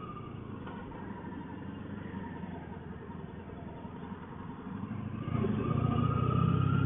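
Honda ST1100 Pan European's V4 engine running at low speed through town, getting louder about five seconds in.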